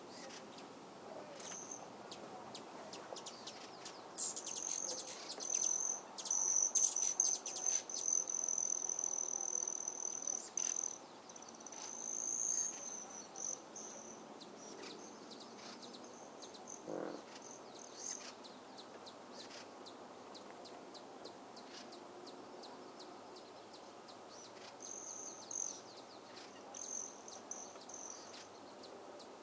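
A buzzing insect's high, steady call, strongest from about four to thirteen seconds in, then returning in short spells, with scattered clicks over a faint outdoor hiss.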